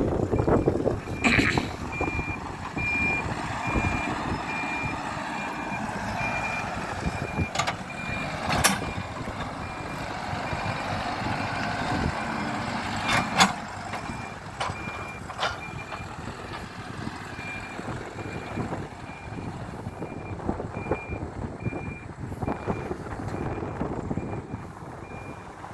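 Diesel engine of a Hidromek 102S Supra backhoe loader running under load, with a reversing alarm beeping in an even, rapid series through most of the time. A few sharp metallic knocks sound about a second in, around eight seconds and around thirteen seconds.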